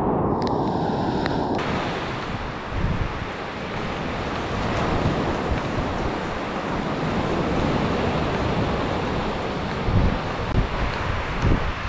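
Rough surf breaking and washing up a sandy beach. Near the end, wind gusts buffet the microphone in short low rumbles.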